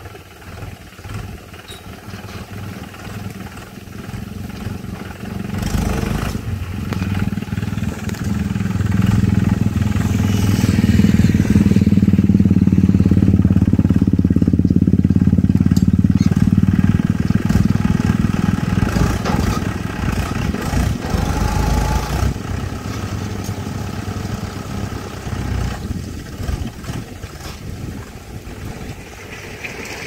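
A motor vehicle engine running steadily nearby, growing louder toward the middle and fading away again: a vehicle passing by.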